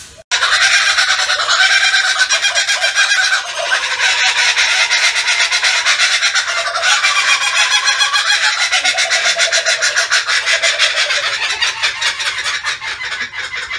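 Several laughing kookaburras calling together in their laughing chorus: a long, loud run of rapid hooting notes that rise and fall. It starts suddenly and thins out near the end.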